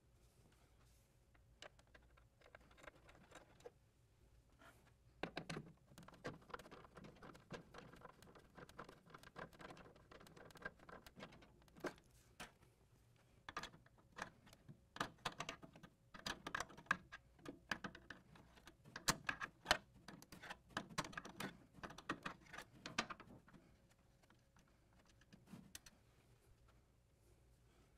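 Faint clicks, taps and rustling of hands handling cables and small hardware inside an open ATM panel. They come in irregular clusters from about five seconds in until a few seconds before the end, loudest a little past the middle.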